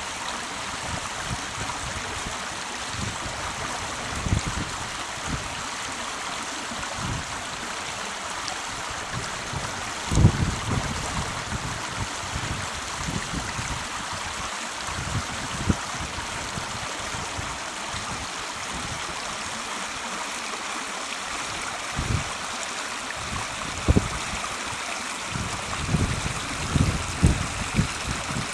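A shallow, rocky brook running and splashing over stones, a steady rush of water. Occasional low thumps break through, the loudest about ten seconds in and several more near the end.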